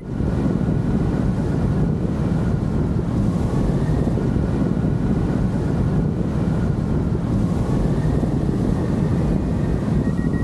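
Steady, heavy wind buffeting a camera microphone on a hang glider in flight, a dense low rumble that does not let up.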